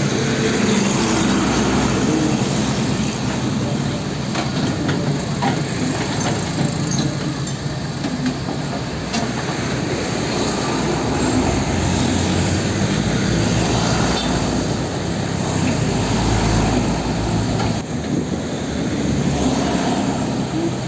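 Komatsu PC78US excavator's diesel engine running under load, with its steel tracks clanking and creaking at scattered moments.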